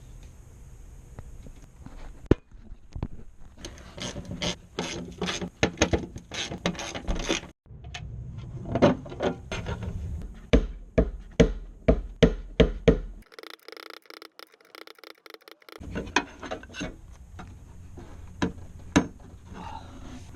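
Hand-tool work on the vehicle: bursts of quick ratchet-like clicking mixed with knocks and rubbing of metal parts, stopping and starting irregularly.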